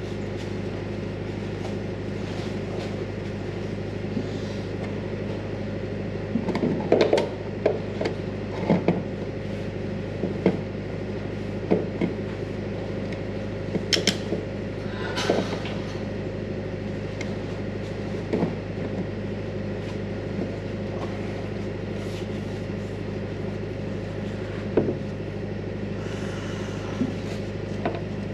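Scattered metal knocks and clanks from a pry bar being worked against the pipe and seal of the excavator's hydraulic oil cooler, over a steady low hum.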